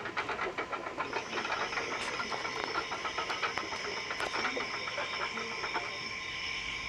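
Steam locomotive running, with a fast even run of sharp beats that fades away near the end. A steady high hiss and whistle-like tones come in about a second in.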